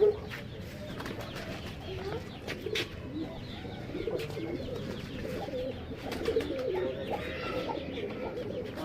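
Several pigeons cooing at once, their low calls overlapping, with a few short sharp clicks about two and a half to three seconds in.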